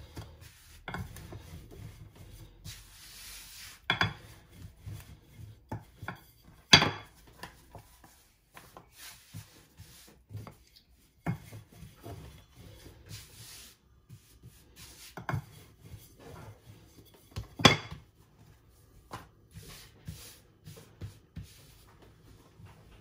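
Kitchen work: utensils and dishes knocking and scraping, with scattered clicks and two sharp knocks about ten seconds apart.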